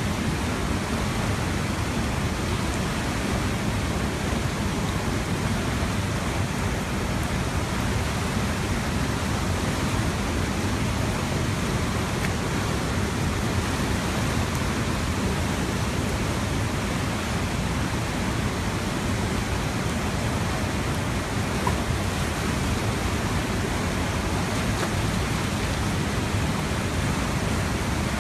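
A river in full flood, bursting its banks after torrential rain, its muddy torrent rushing across a street in a steady, unbroken noise of turbulent water.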